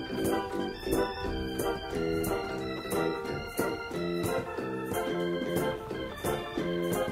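Instrumental passage of a slow ska band arrangement, with no singing. Organ-toned keyboard chords are played as short stabs in a steady rhythm over electric guitar, with a cajon and a shaker keeping time.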